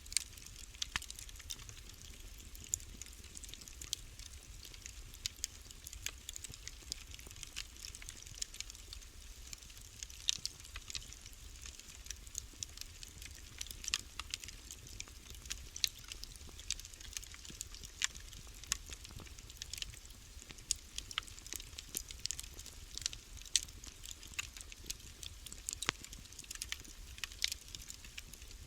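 Wood fire burning in a fireplace, crackling with frequent irregular sharp pops and snaps over a steady low rumble.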